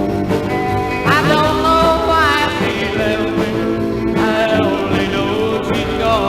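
A 1960 single record playing: a singer over a full band, the vocal line coming in about a second in and again after about four seconds.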